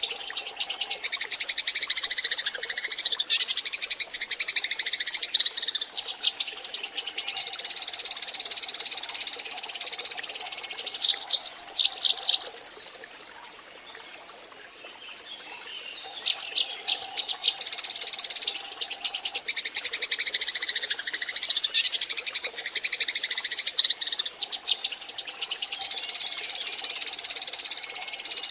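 Eurasian tree sparrows in a flock, chattering in a dense stream of rapid chirps. The chirping drops away for a few seconds midway, then starts again just as thick.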